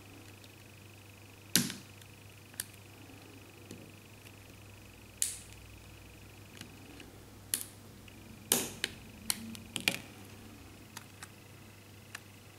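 Scattered sharp clicks and snaps from a small metal tool prying at the plastic frame of a Huawei Y550 smartphone, about a dozen irregular ones, the loudest about one and a half seconds in and again around eight and a half seconds.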